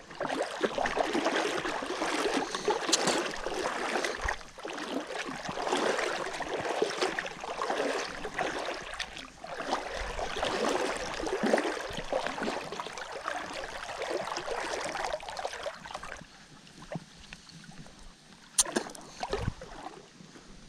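Creek water splashing and sloshing unevenly for about sixteen seconds, then quieter, with a few sharp clicks near the end.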